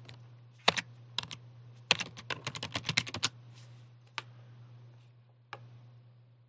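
Computer keyboard typing a short command: a few keystrokes, then a quick run of keys a couple of seconds in, followed by two single key clicks, over a steady low hum.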